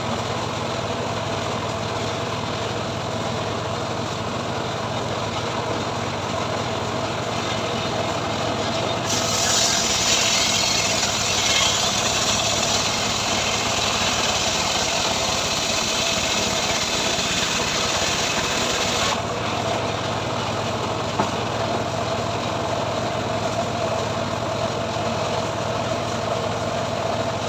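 Engine of a homemade log-sawing rig running steadily. From about nine seconds in, a loud, bright hiss joins for about ten seconds, typical of the saw cutting through mahogany, then stops suddenly and the engine runs on alone.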